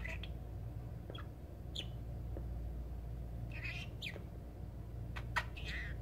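Green budgerigar chattering in its sleep: two short chirps in the first two seconds, then a cluster of chirpy chatter about four seconds in and more near the end, over a steady low hum.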